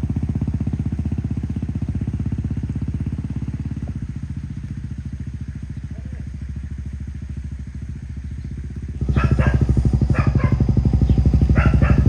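Motorcycle engine running under load as it tows a cart uphill, with a steady, evenly pulsing low rumble. It grows noticeably louder about three-quarters of the way through, where a few short sharp sounds come in over it.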